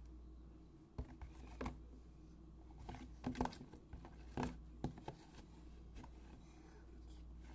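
Clear plastic slime tubs handled and gripped close to the microphone: a few scattered light clicks and knocks, the loudest a little past three seconds in, over a steady low hum.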